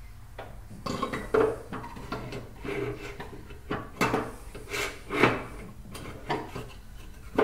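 Laminated wooden block knocking and scraping against a miter saw's metal fence and table as it is worked into place behind the fence. An irregular string of knocks and rubs, the loudest about five seconds in.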